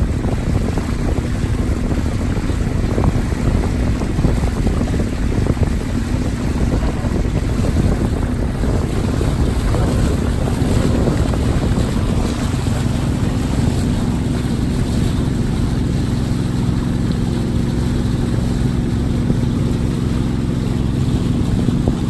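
A small boat's engine running steadily under way, with wind buffeting the microphone. Its hum becomes steadier about halfway through.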